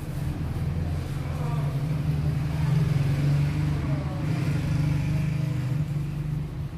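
A steady, low engine-like rumble that swells toward the middle and eases near the end.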